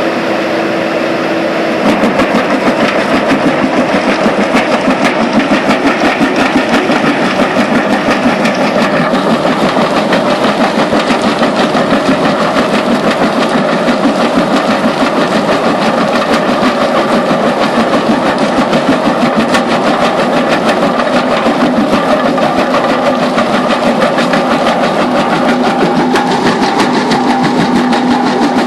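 JCB backhoe loader's diesel engine running with its hydraulic crusher bucket working: a steady hum, then about two seconds in a fast, even pulsing clatter sets in and keeps going as the jaw crushes rock.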